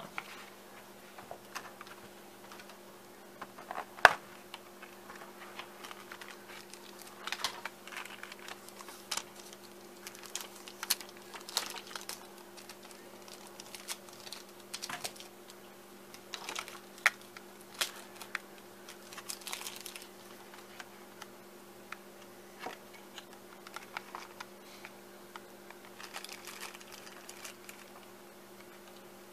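Scattered clicks, taps and light plastic rustles of hands taking a new mobile phone out of its box and handling it, over a steady low hum. A sharp click about four seconds in is the loudest.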